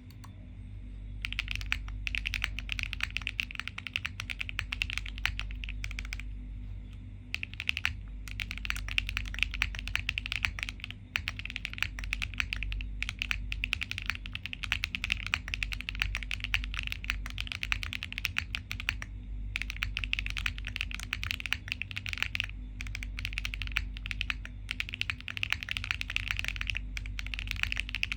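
Typing on a QK60 mechanical keyboard with HMX Ziwei switches: fast runs of crisp keystroke clacks with a few short pauses, over a low steady hum.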